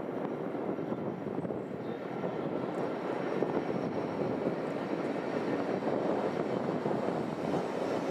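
Class 66 diesel locomotive's two-stroke engine working steadily as it hauls a container freight train past, getting a little louder as the locomotive draws level. Near the end, the wheels of the flat wagons run on the rails.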